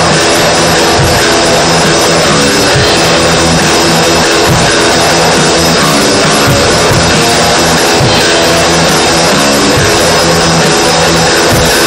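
Raw, improvised extreme-metal rehearsal recording of drum kit and guitar, loud and dense throughout. The whole mix sounds saturated and distorted because the recording input was maxed out, with no distortion effect on the instruments.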